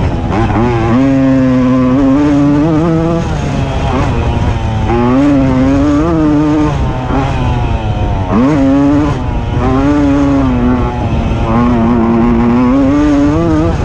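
Tomos automatic moped's 50 cc two-stroke engine, heard from on board, revving hard in repeated runs, its pitch climbing and dropping as the throttle is worked. A little past eight seconds in the revs drop sharply and sweep straight back up.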